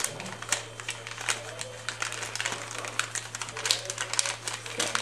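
A sheet of paper being folded and handled by hand, crinkling and rustling in irregular sharp crackles.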